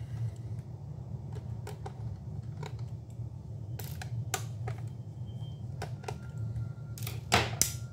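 Light clicks and rattles of a 2.5-inch laptop hard drive in its perforated metal caddy being worked loose and slid out of its bay in the plastic laptop base, with a louder clatter near the end. A steady low hum sits underneath.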